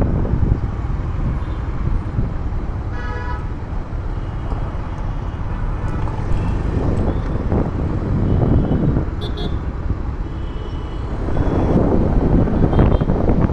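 Motorcycle riding through busy road traffic, a steady low rumble of the ride, with other vehicles' horns honking: one horn about three seconds in, short high beeps around nine seconds, and another horn near the end.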